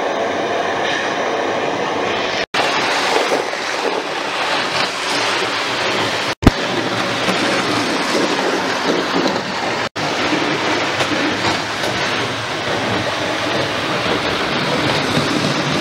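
Dubbed-in recording of a full-size train running on rails, steady throughout, broken three times by sudden split-second dropouts where sound clips are joined, one with a sharp pop about six seconds in.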